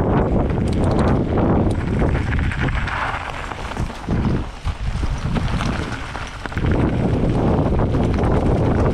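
Wind buffeting a helmet or chest-mounted action camera's microphone while a mountain bike is ridden down a trail, with a steady clatter of clicks and rattles from the bike over rough ground. The rush eases for a few seconds around the middle, then picks up again.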